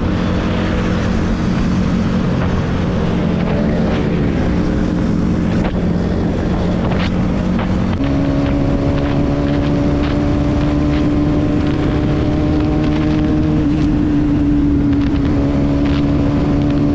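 Bajaj Pulsar NS200's single-cylinder engine running steadily at high speed, heard from the rider's seat with wind noise on the microphone. About eight seconds in, the engine note jumps to a higher pitch and holds there.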